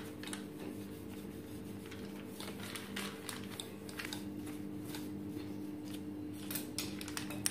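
Wooden rolling pin rolling cashew dough between greased sheets of butter paper: a run of short papery rustles and scrapes, one after another.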